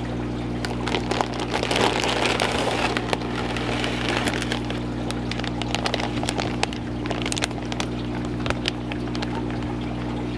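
Plastic fish shipping bag crinkling as it is handled and lifted, with many small crackles over a steady low hum.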